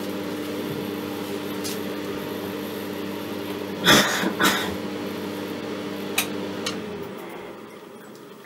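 Steady electrical hum from the high-voltage supply driving a glowing Crookes tube, with a few sharp clicks about four seconds in. Near the end the supply is switched off and the hum winds down, falling in pitch.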